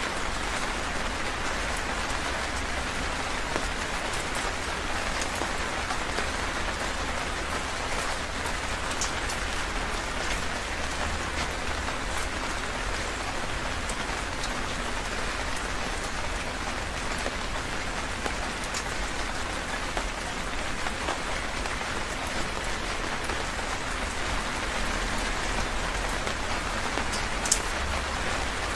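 Heavy rain falling steadily, with individual drops ticking sharply here and there on a hard surface, one louder drop near the end.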